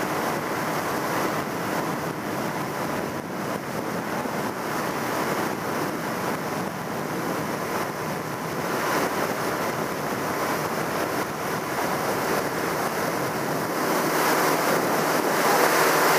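A skiff's outboard motor running at speed, mixed with rushing water and hull spray and wind on the microphone; the sound grows louder toward the end as the boat comes closer.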